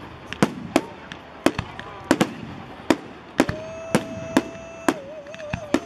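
Fireworks display: a rapid series of sharp bangs from bursting shells, about two a second. Over the second half a long steady whistle joins in and wavers near the end.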